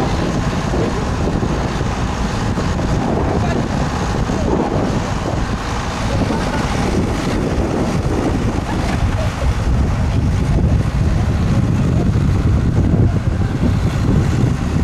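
Wind buffeting the camera microphone in a steady low rumble, over choppy river water, with indistinct voices underneath.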